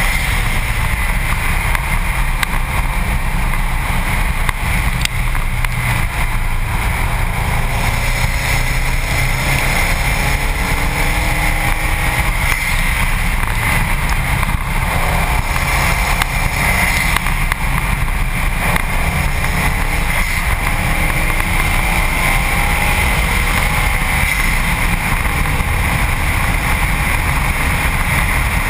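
Wind and road roar on a bumper-mounted camera at track speed. Under it the Subaru WRX STi's turbocharged flat-four is faintly heard rising in pitch and dropping back several times as it runs up through the gears.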